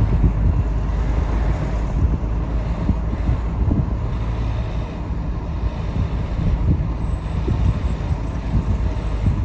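A car driving slowly, heard from inside: a steady low rumble of engine and tyres, with wind buffeting the microphone.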